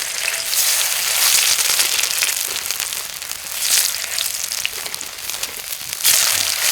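Fat sizzling in a frying pan over a fire: a steady crackling hiss that swells and eases a few times.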